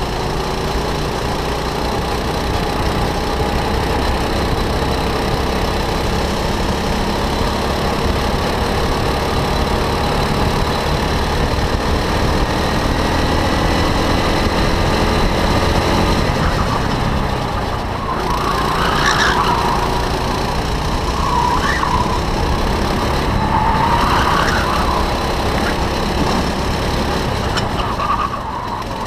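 Go-kart engine heard from on board at racing speed, its pitch climbing steadily as the kart accelerates down a straight, then rising and falling through the corners, with a few short higher sounds in the second half.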